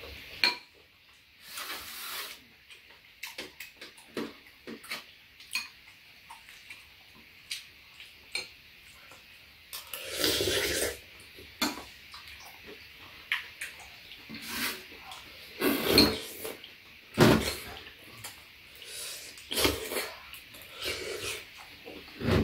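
Metal spoons and chopsticks clinking and scraping against ceramic bowls during a meal, in scattered sharp clicks with a few louder knocks.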